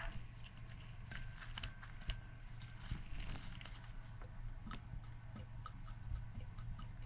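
Faint scattered clicks and rustles of nitrile-gloved hands handling a disassembled Garrett T3 turbocharger's centre section and wheel, over a low steady hum.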